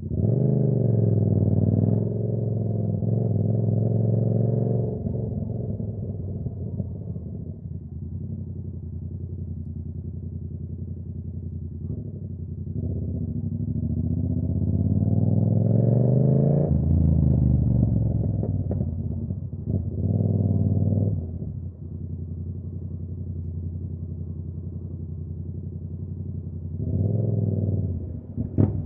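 Yamaha R7's 689 cc parallel-twin engine on the move. The revs climb steeply at the start and again around a third of the way in, then fall away into a steady low run, with short throttle blips about two-thirds of the way through and near the end.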